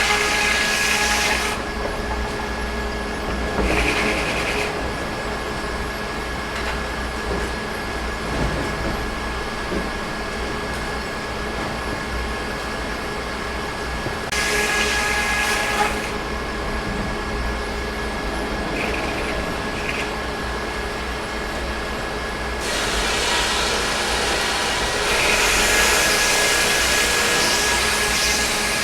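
Sawmill machinery running steadily, with several stretches of louder rushing noise laid over it, the longest in the last six seconds.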